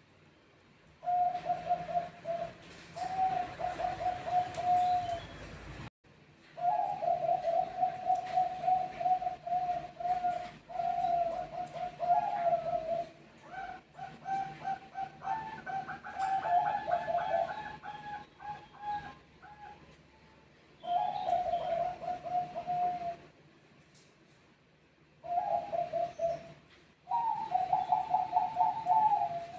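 Zebra doves cooing, each phrase a rapid staccato trill, phrase after phrase with short gaps between. In the middle a second dove answers at a higher pitch, overlapping the first.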